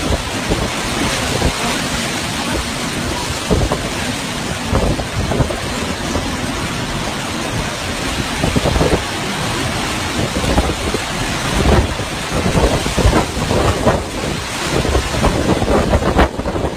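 Cyclone wind and heavy rain: a loud, steady rushing of wind-driven rain, with strong gusts buffeting the microphone, coming more often in the second half.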